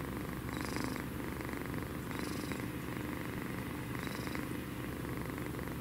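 Sleeping kitten snoring heavily: a steady low rumble with a breathy swell about every two seconds, three breaths in all.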